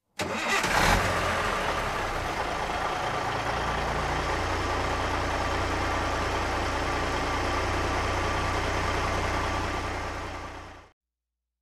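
Bus engine idling steadily, with a louder rush of noise about a second in; a deep steady drone settles in after a few seconds, and the sound fades out near the end.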